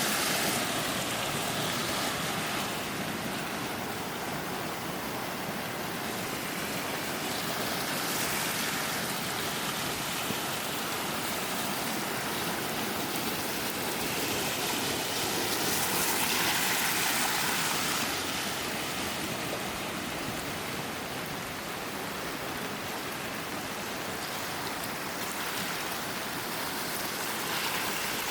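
Rushing water, a steady hiss that swells a little now and then.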